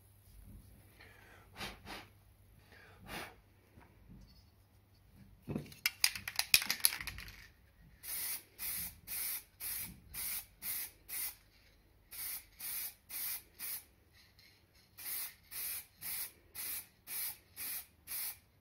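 A loud rattling clatter about six seconds in, then an aerosol spray can hissing in short bursts, about two a second, in three runs with short pauses between them.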